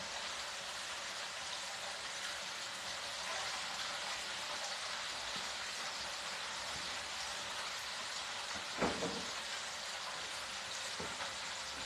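Steady sizzling hiss from hot electric cookware, with one soft knock about nine seconds in.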